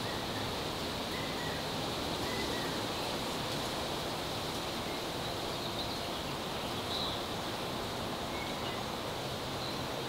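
Steady outdoor ambient hiss with a few faint, short bird chirps scattered through it.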